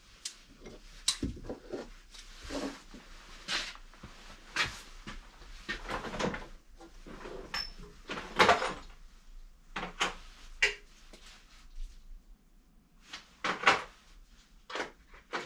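Irregular clunks and knocks of hand tools and metal engine parts being handled on a workbench during a classic Mini engine strip-down, about a dozen separate knocks with the loudest about eight seconds in and again near the end.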